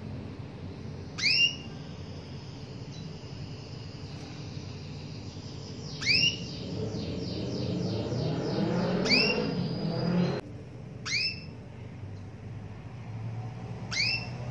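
Female canary calls: five short rising call notes spaced a few seconds apart, with a run of quick repeated notes in the middle that cuts off suddenly. This is the female call used to prompt a quiet male canary into song.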